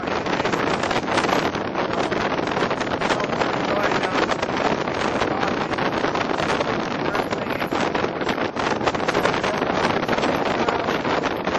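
Wind rushing over and buffeting the microphone in the open bed of a moving pickup truck, a steady dense rush that covers all other sound.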